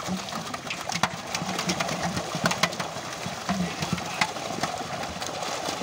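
Many fish thrashing in a seine net drawn tight in shallow pond water: continuous splashing with frequent sharp slaps at the surface.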